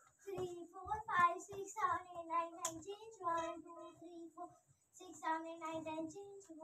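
Children's voices chanting in a sing-song rhythm in short held beats during a warm-up exercise, with a pause a little after the middle. Soft low thumps come in between.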